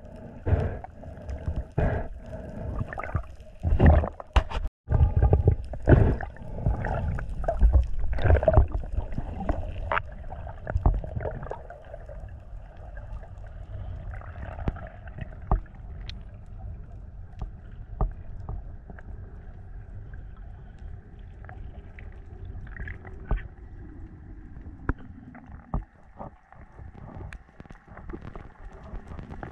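Underwater sound picked up by a diver's camera. For about the first twelve seconds there are irregular gurgles and muffled knocks of moving water. After that it settles into a quieter steady wash with scattered small clicks.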